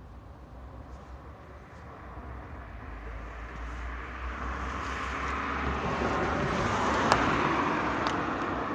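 A passing road vehicle: its noise swells steadily over several seconds, peaks about seven seconds in, then starts to ease off. A single sharp click sounds at the loudest point.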